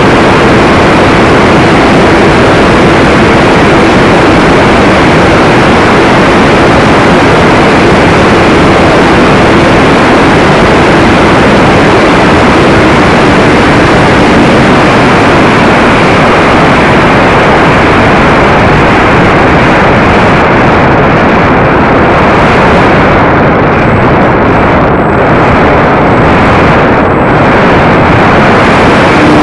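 Loud, steady rush of wind and propeller noise on an onboard camera's microphone riding a flying model T-28, with a faint steady motor tone under it. The hiss thins briefly several times near the end.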